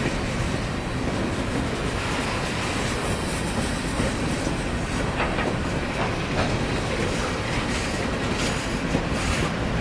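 Coal hopper cars of a freight train rolling slowly past, a steady rumble and hiss with occasional wheel clicks over the rail joints.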